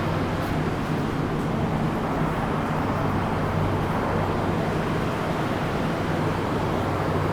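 Steady low hum and rush of noise aboard an MTR K-Train electric multiple unit standing at a station, with no rising or falling motor whine.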